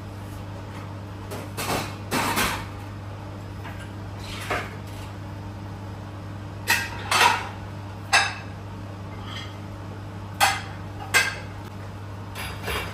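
Dishes and cutlery clinking and knocking as a dishwasher is unloaded and the items are put away: about ten separate clinks spread through, over a steady low hum.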